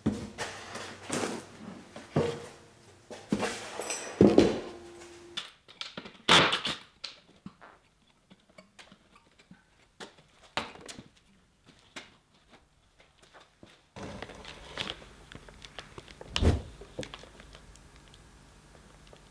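Irregular knocks and thumps of a wooden shipping crate being handled, set down on a steel table and opened.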